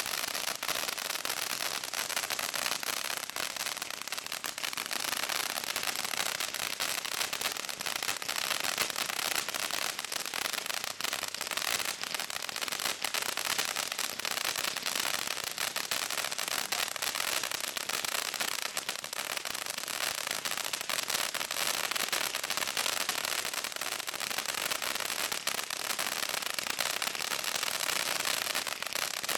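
Original Fireworks Etna ground fountain firework burning, giving a steady hiss of spraying sparks dense with fine crackles.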